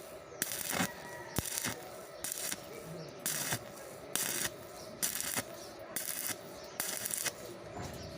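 Welding arc struck in short repeated bursts of crackling hiss, roughly one a second, as in stitch or tack welding, over a faint steady hum.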